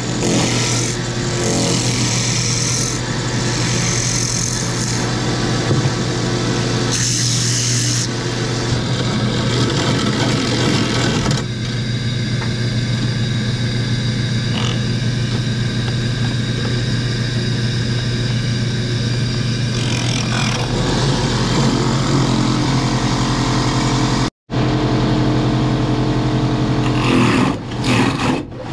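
Electric woodworking machine running steadily with a constant motor hum, with changing hissy cutting noise as the tool works the wood.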